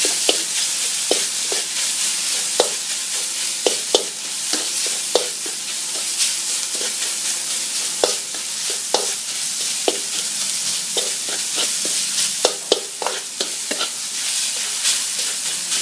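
Minced chicken, chilli, garlic and onion sizzling in a hot metal pan with little oil. A plastic spatula stirs and scrapes the pan, giving irregular clicks and taps over a steady hiss.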